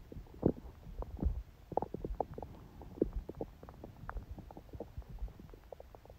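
A person's stomach gurgling: a quick run of short, soft gurgles and pops over a low rumble, the loudest ones about half a second and a second and a quarter in.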